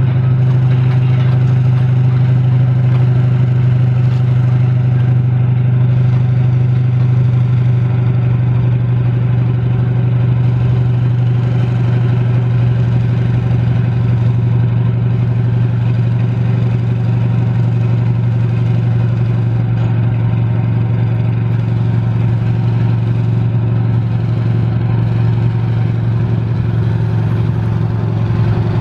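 Heavy demolition machine's diesel engine running steadily at an even pitch, with a strong low hum.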